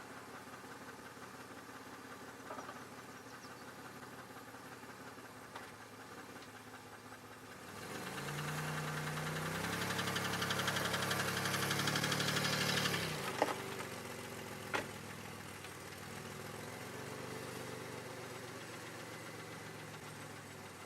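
2002 Chevy Malibu engine idling. About eight seconds in, the engine note rises in steps and stays up for about five seconds, then drops back to idle. A couple of sharp clicks follow.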